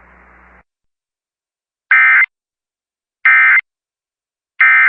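Emergency Alert System end-of-message: three short, loud bursts of SAME digital data tones, each under half a second and about a second and a half apart, marking the end of the weather radio alert. Faint radio hiss and hum fades out in the first half second.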